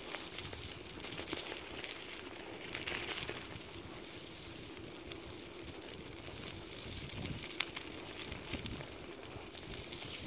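Dog scooter's wheels rolling over a gravel-and-dirt track, a steady crackle of grit and small stones under the tyres with scattered small clicks.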